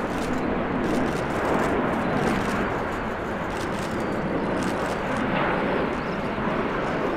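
Jet airliner engines running: a steady, even noise with no clear tone and no changes.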